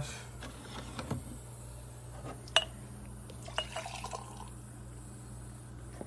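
Espresso cups and dishes clinking a few times, with faint dripping liquid, over a steady low hum.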